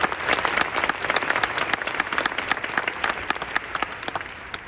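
Stadium crowd applauding: a dense spread of clapping that thins and fades away near the end.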